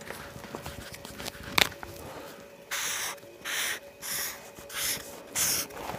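Pen strokes scratching across a paper notepad as a line is drawn over and darkened, about five short strokes in quick succession in the second half, after a single click.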